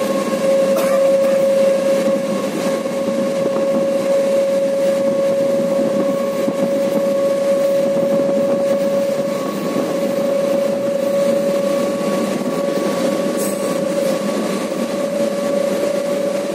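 Train running at high speed: a steady rolling rush of wheels on rail with a constant whine, unchanging throughout.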